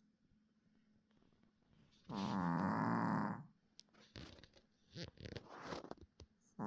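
A sleeping puppy snoring: one long, pitched snore about two seconds in, repeating the snore heard just before. It is followed by softer scattered clicks and short noises, and the next snore begins at the very end.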